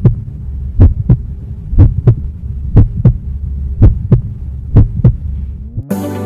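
Heartbeat sound effect: paired low thumps (lub-dub) about once a second over a steady low hum. They stop near the end, where a short rising sweep leads into music.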